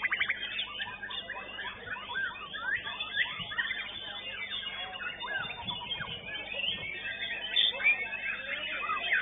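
White-rumped shama (murai batu) singing a dense, varied song of quick whistled glides and fast trills, with a rapid run of repeated notes at the very start.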